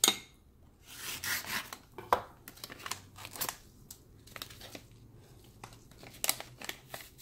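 Plastic bag crinkling and rustling as paste is squeezed out of it by a gloved hand, in irregular bursts with a few sharp crackles.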